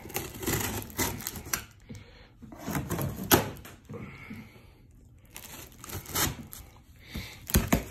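A cardboard shipping box being handled and opened: irregular scraping and rustling of cardboard and tape, with a few sharp knocks, the loudest about three seconds in and again near the end.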